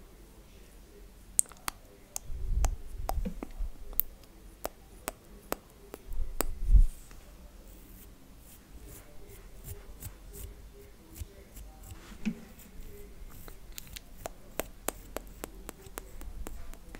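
Close-miked ASMR hand sounds: irregular sharp clicks and ticks, with a few soft low thumps about two and six seconds in.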